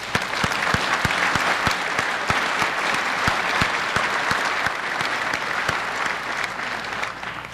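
Audience applauding: dense clapping from many people, tapering off near the end.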